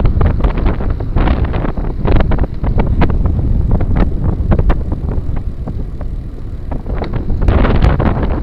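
Wind buffeting the microphone as a steady low rumble, with frequent sharp knocks and rattles from a Motobecane Fantom Cross gravel bike jolting over a rough trail.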